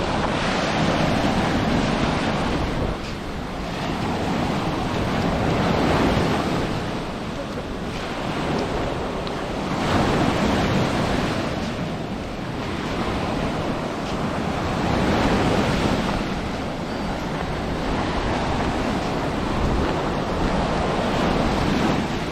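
Sea of Azov surf breaking and washing up the shore, swelling and fading every four to five seconds, with wind buffeting the microphone.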